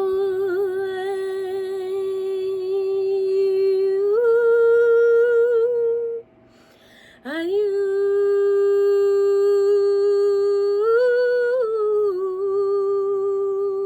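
A woman's voice humming two long held notes as sound-healing toning. Each note slides up into a steady pitch and later steps up a few tones. The first stops about six seconds in, the second begins about a second later and drops back down near the end.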